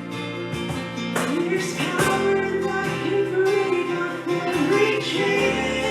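Worship song: strummed acoustic guitar chords with a voice singing a melody over them.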